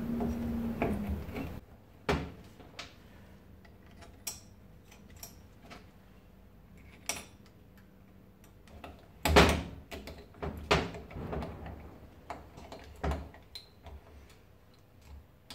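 Scattered clicks and knocks of metal parts and hand tools as a Hitachi air suspension compressor is reassembled, the loudest knock about nine seconds in. A low steady hum stops about a second and a half in.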